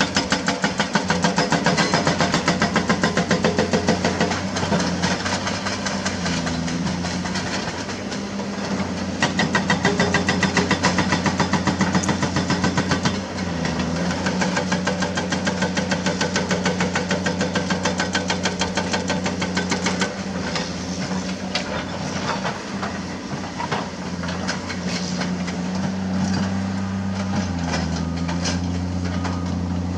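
Hydraulic rock breaker on a CAT excavator hammering limestone in rapid, evenly spaced blows, in a run at the start and another about nine seconds in. Under it the excavators' diesel engines run steadily, their note shifting a few times.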